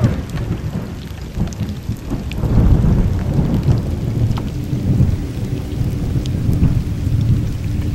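Heavy monsoon rain falling, with a deep, rolling rumble of thunder that swells and fades throughout. A steady low tone joins about six seconds in.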